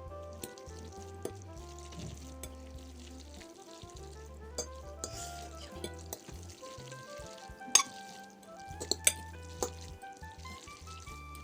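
Background music with a stepping melody and bass, over the wet, sizzle-like noise of hot instant noodles being stirred and mixed with sauce. There are a few sharp clicks of a utensil against the dish later on.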